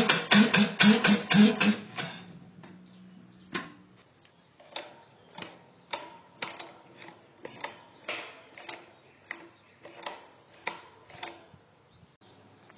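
Converted Briggs & Stratton lawnmower engine running as a steam engine on compressed air, puffing about three times a second, then stopping abruptly about two seconds in. After that come scattered light clicks and knocks as its crankshaft is turned by hand.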